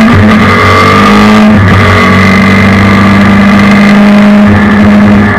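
Suzuki Hayabusa 1300 inline-four motorcycle engine in a race car, heard onboard, at full throttle. Its note climbs and breaks off sharply twice as it shifts up through the gears, then holds at steady high revs.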